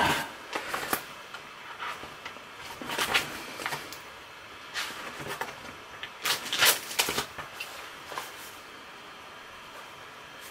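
Irregular clusters of sharp clicks and taps from a laptop's mouse and keyboard, coming in small groups every second or so, then stopping for the last couple of seconds.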